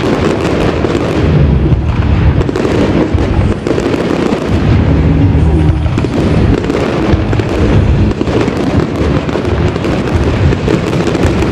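Dense barrage of aerial firework shells bursting in quick succession, with booms and crackle running together without a break.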